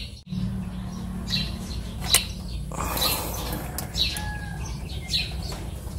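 Small birds chirping about once a second over a steady low hum, with one sharp click about two seconds in.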